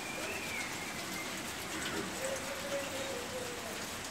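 Steady rain falling: an even hiss dotted with the small ticks of individual drops.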